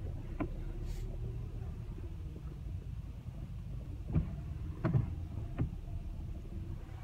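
Road noise inside a moving car's cabin: a steady low rumble of tyres and engine on a snow-covered road. A few sharp knocks stand out, one near the start and three close together about four to six seconds in.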